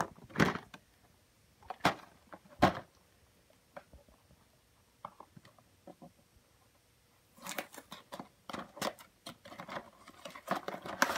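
A cardboard toy box being handled and opened: a few sharp knocks in the first three seconds, then from about seven seconds a busy run of clicking and rustling from the cardboard and plastic packaging.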